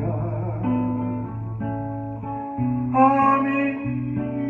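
Instrumental accompaniment of a slow ballad: acoustic guitar picking chords over a steady bass, with a louder melodic phrase about three seconds in.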